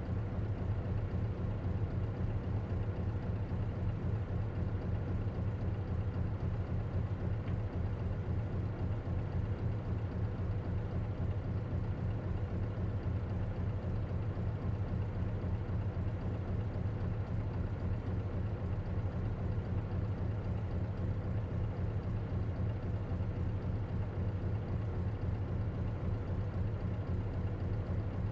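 Diesel engine of an Isuzu KC-LV380N city bus running steadily, heard from inside the cabin: an even low hum with a faint steady tone above it, no revving or gear changes.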